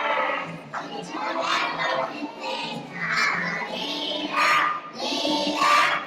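Children singing a song with music, in phrases broken by short pauses.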